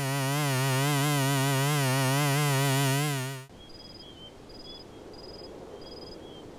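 A loud held musical tone that wavers quickly up and down in pitch, lasting about three and a half seconds and cutting off sharply. Then faint night ambience with crickets giving short high chirps at a steady pace, a little under two a second.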